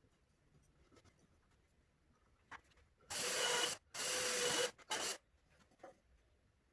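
Three short rasping strokes on wood, one right after another a little past halfway, each under a second.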